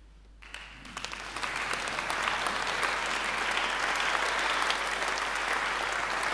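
Audience applause: a few first claps about half a second in after silence, swelling within a second or so into steady, dense clapping.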